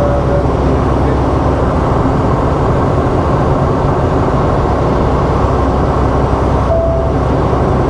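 Semi-truck running down the highway, heard from inside the cab: a steady low engine drone under constant road noise.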